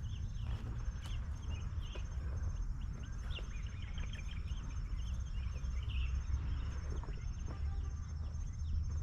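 A continuous low rumble, which the uploader takes for Mount Merapi rumbling as it builds towards an eruption, under many birds chirping.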